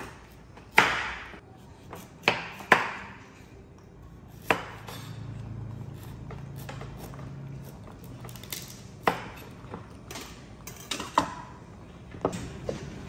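Kitchen knife cutting through raw sweet potato and knocking on a wooden cutting board: single sharp chops every second or few, irregularly spaced. Near the end the slices are dropped into a plastic steamer basket.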